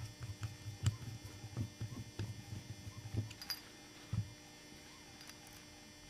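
Hand screwdriver driving a self-tapping screw into a machined metal microphone end plug: a run of irregular low creaks and small clicks for about three seconds, then a single knock about four seconds in. A steady electrical hum runs underneath.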